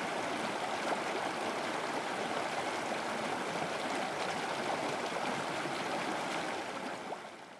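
River water rushing over shallow rapids: a steady, even wash that fades out near the end.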